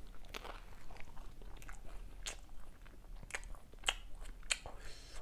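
A man biting into and chewing a piece of stuffed garlic bread dipped in basil pesto dip, close to a clip-on microphone. The chewing comes as irregular, sharp, wet clicks and crunches, several a second.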